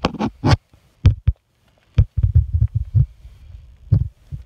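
A run of irregular, close low thumps and a few sharp knocks, denser for about a second in the middle, typical of a phone's microphone being handled and bumped as it is moved about.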